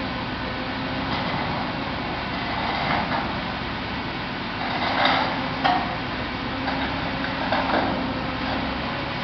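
Mobile crane's diesel engine running steadily under load as it lifts a cut footbridge section, with a few louder knocks or clanks, the sharpest a little past the middle.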